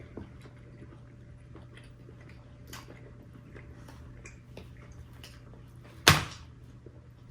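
Quiet eating at a table: small scattered clicks and smacks over a steady low hum. About six seconds in comes a single loud, sharp knock.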